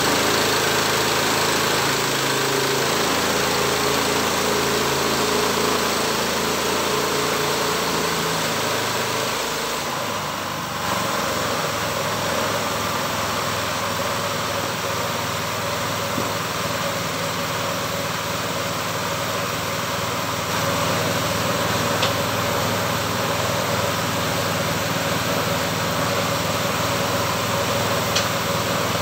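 Engine driving a homemade sawmill, running steadily throughout; about ten seconds in, its note changes, then it keeps going evenly.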